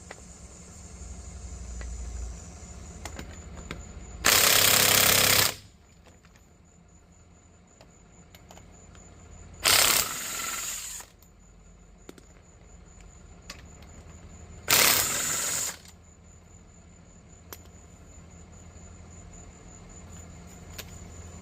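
Impact wrench hammering in three bursts of about a second each, several seconds apart, spinning off the 19 mm lug nuts of a wheel.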